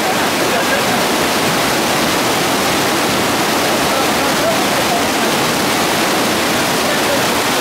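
Rocky stream rushing over boulders in a shallow white-water cascade, a loud, steady rush of water.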